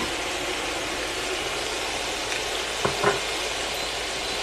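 Chopped vegetables sizzling steadily in a hot pot while thick jarred tomato sauce is poured over them. There is a sharp click at the start and two short knocks about three seconds in.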